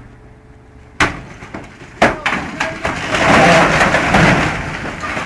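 A crash of something breaking: a sharp bang about a second in, a second bang a second later, then a louder few seconds of noisy crashing.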